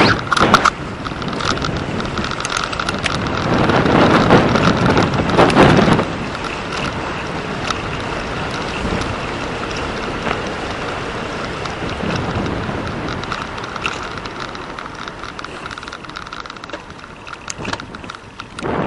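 Wind buffeting the microphone of a bicycle moving at speed, with the hiss of tyres rolling on asphalt. The wind is loudest about four to six seconds in, then settles to a steadier rush.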